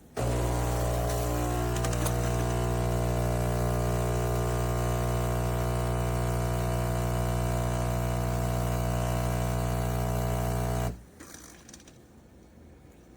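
Philips 3300 Series fully automatic espresso machine running with a loud, steady hum that starts suddenly, settles in pitch over the first couple of seconds, and cuts off abruptly about eleven seconds in.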